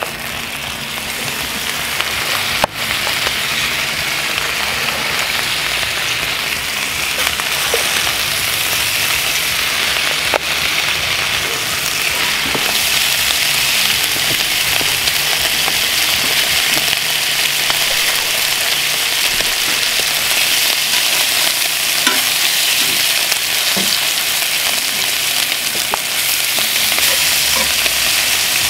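Bacon sizzling in a cast iron skillet over wood-fire coals. The sizzle grows louder over the first few seconds as the strips go into the pan, then holds steady, with a few light clicks.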